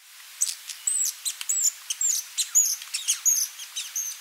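Giant hummingbird calling: a quick run of short, high-pitched squeaks, several a second, over a steady hiss.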